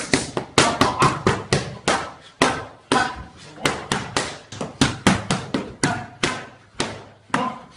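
Boxing gloves smacking focus mitts in pad work: sharp slaps in quick runs of two to four punches, around twenty in all.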